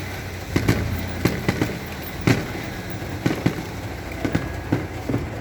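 Car engine idling with a steady low hum, with irregular sharp pops and knocks, a few each second.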